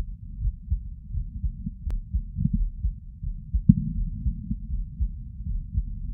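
A person's heartbeat at rest while sitting, recorded close to the chest: a steady run of muffled low thumps, with a couple of louder knocks in the middle.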